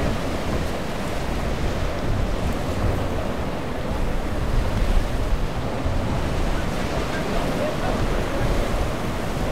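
Choppy inlet water and surf washing around the boats, with wind buffeting the microphone and a low rumble underneath; boat motors run faintly in the mix.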